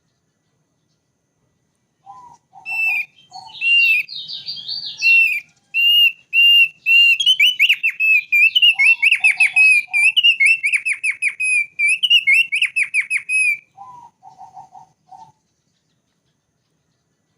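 Thick-billed white-eye (opior paruh tebal) singing. A fast, loud run of clear, high whistled notes starts about three seconds in, grows into rapid trills and lasts some ten seconds. Short clusters of lower chirps come in at about two seconds, mid-song and again near the end.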